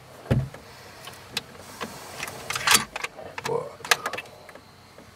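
Handling noise in a wooden hunting blind: a dull thump about a third of a second in, then a few scattered sharp clicks and knocks of gear being moved.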